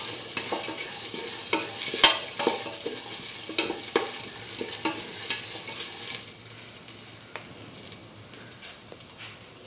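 Sliced onions and whole spices sizzling in oil in a stainless steel pan while being stirred, the utensil scraping and tapping against the metal. The stirring stops about six seconds in, and the frying goes on more quietly.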